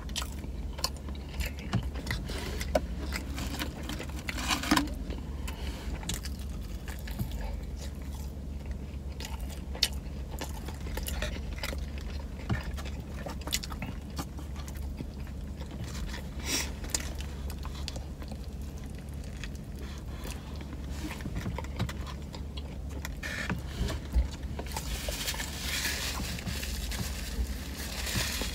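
Close-up chewing and biting on a Philly cheesesteak sub, with small clicks and paper-wrapper rustles, over a steady low hum; the sounds get busier in the last few seconds as she bites into the sandwich.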